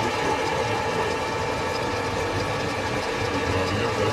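Metal-turning lathe running in a workshop: a steady mechanical whine over an even rattle of the gears and the work.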